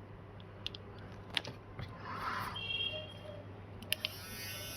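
Faint scattered clicks and a brief scrape of a small hand tool working on a phone circuit board's metal shield as it is cut, over a steady low hum.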